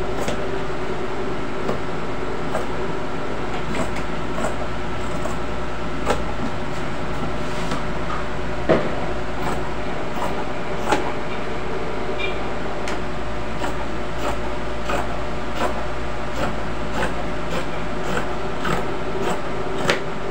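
Scissors snipping through cloth on a cutting table, a short click at each close of the blades at an irregular pace. Under it runs a steady mechanical hum with several fixed tones.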